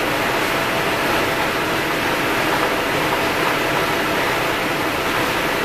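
Blower fans of an inflatable paint booth running, a steady rush of air with no change in pitch.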